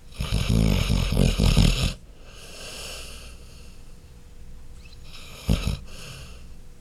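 A sleeping Labrador Retriever snoring. A long, loud snore of about two seconds is followed by a quieter, breathy breath, then a second, short snore about five and a half seconds in.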